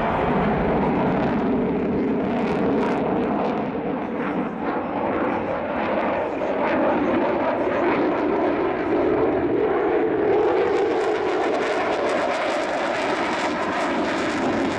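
Loud, steady jet noise from an F-16 Fighting Falcon flying a display turn overhead, with its afterburner lit.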